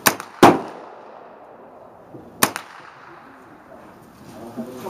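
Gunshots on a shooting range: two sharp reports close together in the first half-second, the second one the loudest, then a third about two seconds later.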